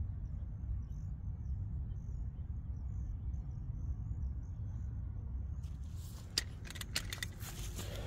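Steady low outdoor rumble with faint, repeated high chirps. About six seconds in comes a short burst of sharp rattling clicks.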